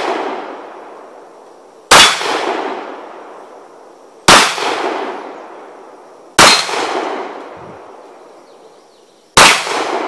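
Handgun fired single shots, four of them two to three seconds apart, each crack followed by a long fading echo.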